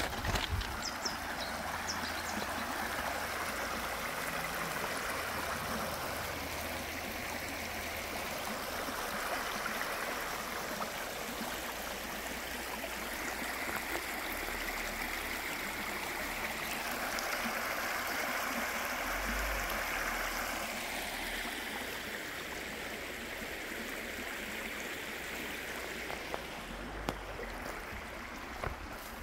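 Nabão River water running over rocks: a steady rushing stream.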